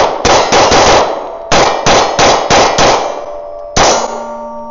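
FN Reflex 9mm pistol firing steel-cased 115-grain ammunition at steel plates: about ten rapid shots in two quick strings, then a last shot near the end, after which the struck steel rings on with a steady tone. It cycles with no stoppage, the pistol running okay after its extractor adjustment.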